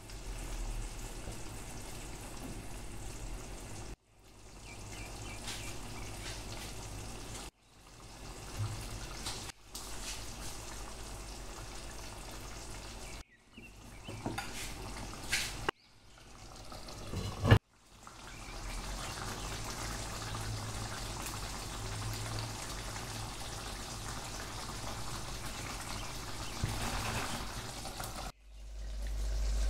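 Coconut-milk curry simmering and bubbling in a frying pan, in a string of short takes that break off abruptly. A single sharp knock about two-thirds of the way through.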